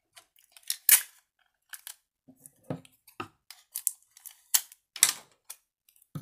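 Clear adhesive tape pulled off its roll and torn off in short pieces: a string of crackles, rustles and sharp clicks, the loudest snaps about a second in and about five seconds in.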